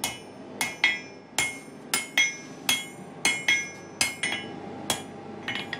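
Blacksmith's hammer blows on tool steel over an anvil, each strike ringing metallically, about two a second and often in quick pairs. The steel is being hand-forged into stonemasons' tools.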